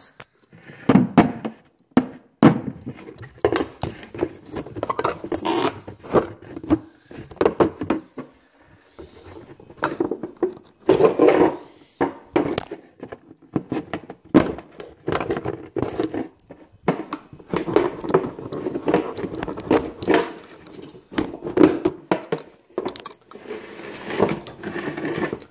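Handling noise: irregular knocks, clicks and scrapes with rustling in between, as the camera is moved about and things are set down in a kitchen.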